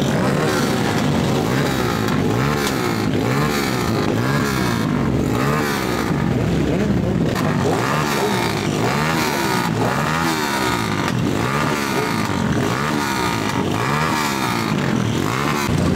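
Several motorcycle engines revving again and again, overlapping, each throttle blip rising and falling in pitch about once a second.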